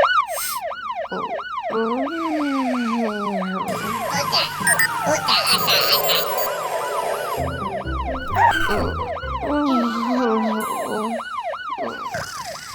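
Cartoon fire truck siren sounding in fast up-and-down sweeps, about three a second, with other gliding tones underneath.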